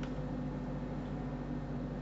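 Steady low electrical hum with an even hiss: background noise of the recording microphone, with no distinct sound events.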